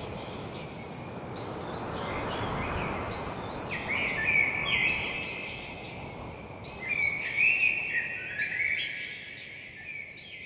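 Songbirds singing: many short high chirps and trills, busiest in the second half, over a steady low background rush.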